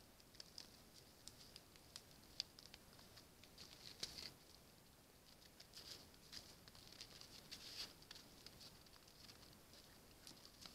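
Faint, irregular clicking and crunching as a red deer stag feeds on stony ground, over a low hiss.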